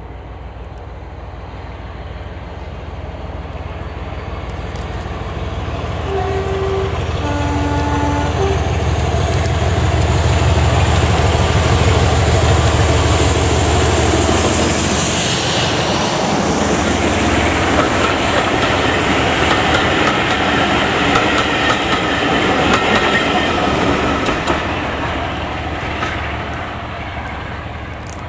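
Diesel locomotive approaching with its engine working, sounding a two-tone horn about seven seconds in, a high note then a lower one. It then passes close by with a heavy rumble, followed by its Mark 1 coaches clattering over the rail joints and fading away.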